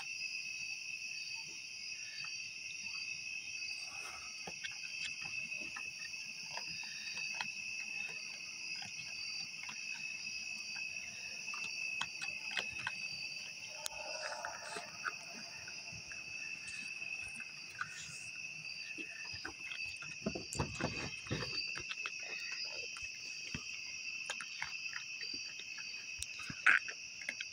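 A steady, shrill chorus of night insects, with scattered small clicks and scuffs over it and a few low rumbling bumps about three-quarters of the way through.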